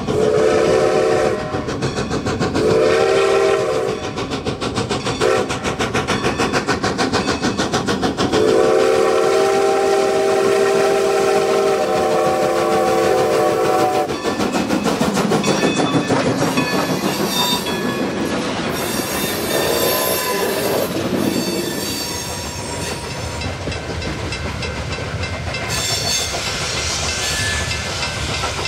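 Strasburg Rail Road No. 90, a 2-10-0 steam locomotive, sounds its whistle long, long, short, long for a grade crossing while its exhaust beats steadily as it pulls a loaded freight uphill. About halfway through the whistle stops and the locomotive passes, followed by the loaded covered hoppers rolling by with wheels clattering over the rail joints.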